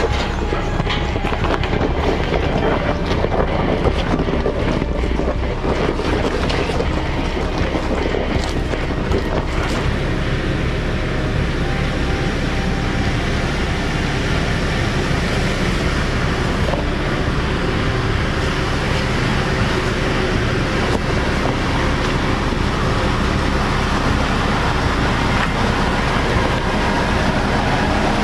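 Jeep Grand Cherokee Trailhawk driving an off-road trail: a steady rumble of engine and tyres with wind buffeting the microphone, and a few sharp knocks in the first ten seconds.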